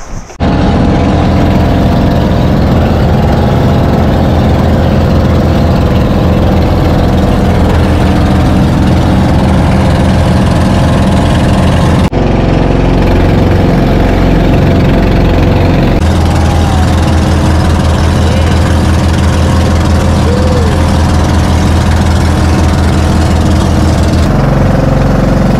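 Outrigger bangka's inboard engine running steadily under way, loud and close. Its note shifts abruptly about 12, 16 and 24 seconds in.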